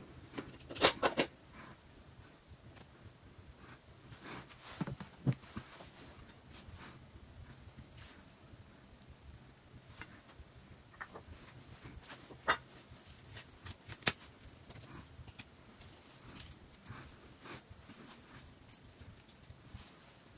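A few sharp taps and soft knocks as burger parts and utensils are handled on a wooden board, over a steady high-pitched insect trill.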